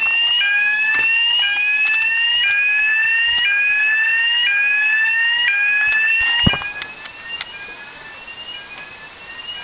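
Electronic fire alarm sounder going off with a rising sweep tone that repeats about once a second. A thump comes about six and a half seconds in, after which the alarm is fainter but keeps sounding.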